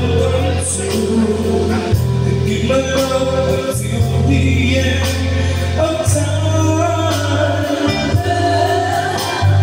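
Two singers performing live into microphones over loud amplified backing music with a steady bass line, heard through a PA system.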